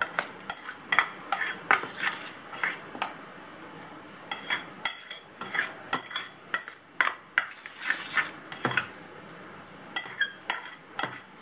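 Metal spoon stirring and scraping thick bread dough in a stainless steel bowl, with irregular clinks and taps of the spoon against the bowl, several a second, some of them ringing briefly.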